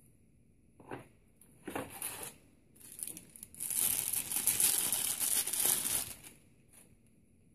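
Clear plastic bag crinkling and rustling as a power adapter is handled and pulled out of it. A few short rustles come first, then a longer, louder stretch of crinkling from about halfway through until near the end.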